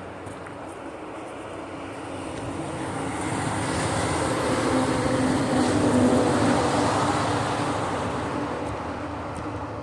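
A motor vehicle passing by, its engine and tyre noise growing louder to a peak about six seconds in, then fading away.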